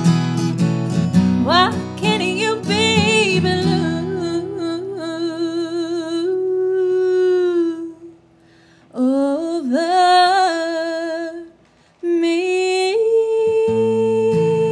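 Woman singing with her own acoustic guitar accompaniment, her held notes wavering with vibrato. The guitar drops out about five seconds in, leaving long sustained vocal lines broken by a brief pause near the middle, and the strumming comes back near the end.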